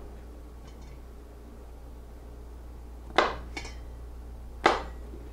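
Chef's knife cutting through small mushrooms and knocking on a plastic cutting board: two sharp knocks about a second and a half apart, the first followed by a lighter tap, over a low steady hum.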